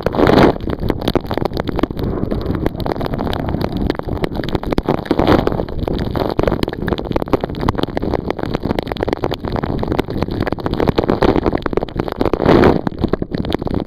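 Wind and spray buffeting the camera's microphone as a bay boat runs through choppy storm water, a dense rushing noise with several louder surges, one right at the start and another near the end.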